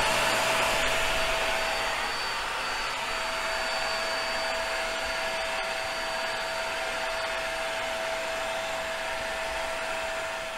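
Small handheld electric air pump running steadily, blowing air through a hose to inflate an inflatable dock platform: a steady rush of air with a constant high whine, a little louder in the first couple of seconds.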